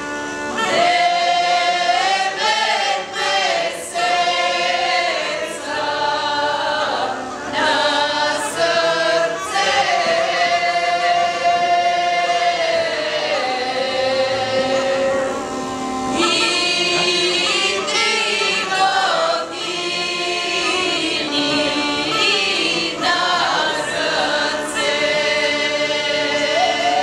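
A group of women singing a Bulgarian folk song together in close harmony, holding long notes, over a steady drone from a gaida, the Bulgarian bagpipe.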